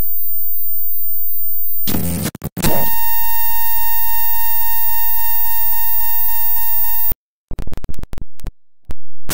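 A run of synthesized sci-fi noise effects: a low electronic hum, a short noisy crackle about two seconds in, then a loud buzzing electronic tone pulsing quickly for about four seconds before it cuts off suddenly, followed by stuttering, choppy glitch bursts.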